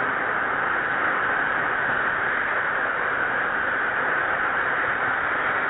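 Small paraffin-acrylic-potassium rocket motor burning on a test stand: the exhaust jet gives a steady, even hissing rush that holds at one level.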